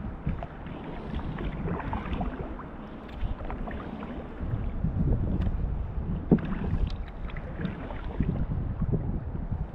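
Kayak being paddled: the paddle dips and splashes in the water, with scattered knocks against the hull. The sharpest knock comes about six seconds in.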